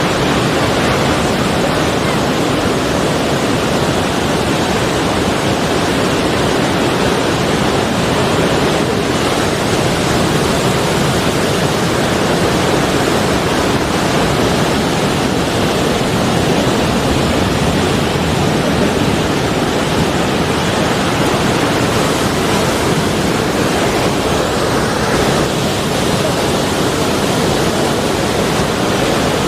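Sea waves washing on the shore as a steady, even rush of surf, with no separate crashes standing out.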